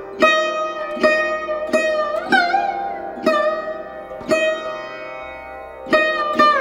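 Background music: a plucked string instrument playing single ringing notes about once a second, some sliding in pitch, with one longer held note past the middle.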